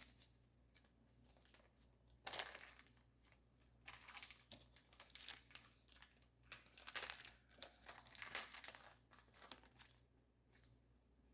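Crinkling and rustling of parts packaging being handled and rummaged through, in irregular bursts that begin about two seconds in and die away near the end.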